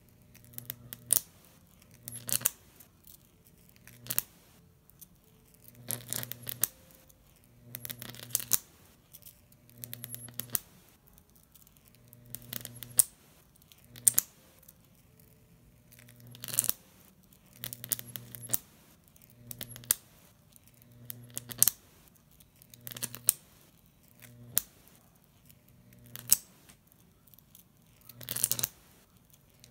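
Homemade Jacob's ladder: a high-voltage arc between two copper wires, fed by a MOSFET driver, buzzing and crackling in repeated bursts about every one and a half to two seconds as each arc strikes, climbs the wires and breaks, with sharp cracks in each burst.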